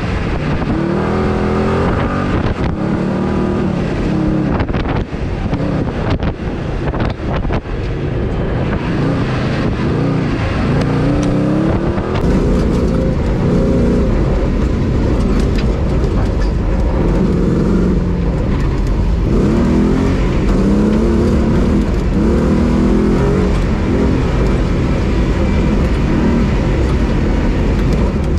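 Off-road competition 4x4's engine revving hard under acceleration, its pitch climbing and dropping again and again through the gear changes. Sharp knocks sound over it during the first several seconds; from about twelve seconds in it is heard from inside the cabin, with a heavier low rumble.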